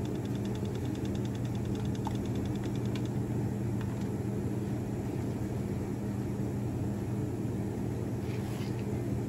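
A steady low mechanical hum, engine-like and unchanging, with a rapid light ticking that stops about three seconds in.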